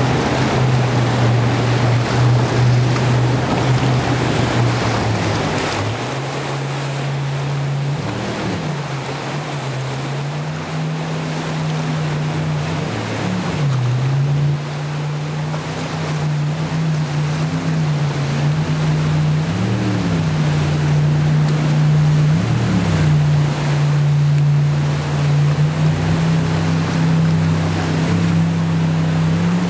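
Jet boat engine running hard through whitewater rapids, a steady low drone that briefly rises in pitch and drops back several times, over the loud rush of the rapid's breaking waves.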